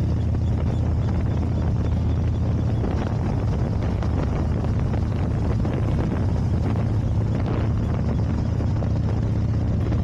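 2007 Harley-Davidson FXDC's Twin Cam 96 V-twin engine running steadily at cruising speed on the road, with wind buffeting the microphone.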